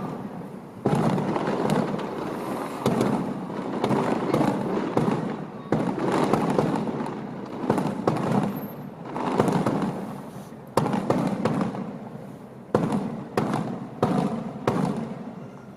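Aerial fireworks shells bursting one after another: sudden bangs, each followed by a long fading echo, coming more closely together in the second half.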